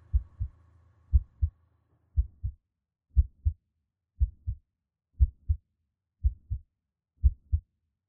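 Heartbeat sound effect: slow, steady lub-dub double thumps, about one pair a second.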